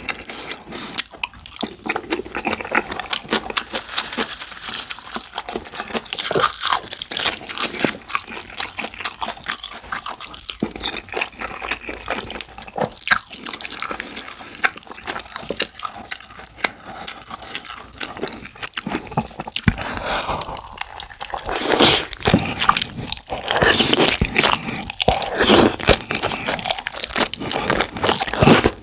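Close-miked eating sounds: wet chewing of rice mixed with curry and black bean sauce, full of small sharp clicks and crunches. The sounds grow louder for a few seconds about three quarters of the way through.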